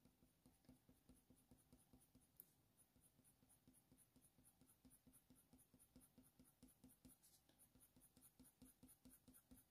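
Faber-Castell Polychromos colour pencil stroked quickly back and forth on hot-press watercolour paper: a faint, rhythmic scratch of about four to five short strokes a second, with one sharper tick about two and a half seconds in.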